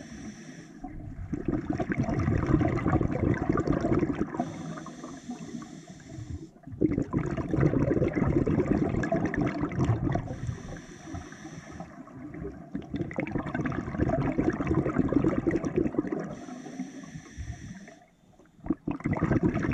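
Scuba diver breathing underwater through an open-circuit regulator: a hissing inhale, then a long gurgle of exhaust bubbles, about once every six seconds, three to four breaths in all.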